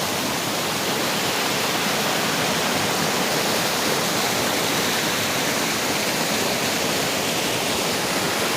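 Waterfall rushing: a steady, loud roar of falling water close by.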